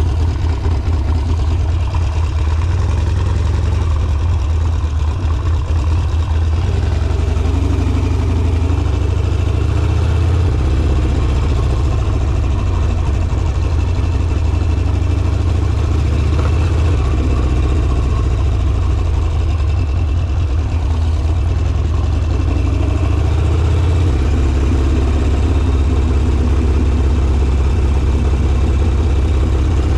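Harley-Davidson Sportster's V-twin engine running steadily under way, a deep, even exhaust note with small changes in engine speed about a third of the way in and again late on.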